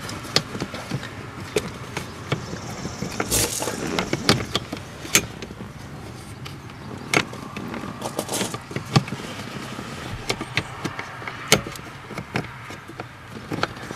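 Scattered clicks, taps and scrapes of a plastic HVAC actuator motor being worked by hand into its mount on the plastic heater box, with two short rustling swishes about three and a half and eight and a half seconds in.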